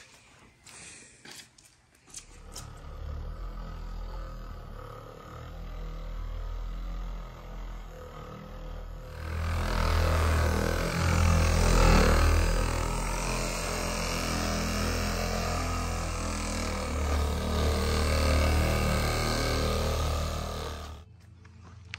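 An engine running steadily, growing louder about nine seconds in, then cutting off suddenly near the end.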